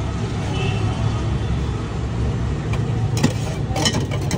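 Steady low rumble of background noise, with a few sharp clicks and clinks about three to four seconds in.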